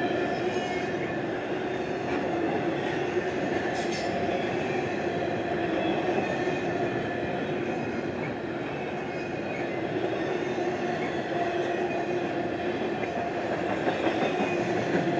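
CSX double-stack intermodal freight train's well cars rolling past: a steady rumble of steel wheels on rail with a faint steady whine, and one brief sharp click about four seconds in.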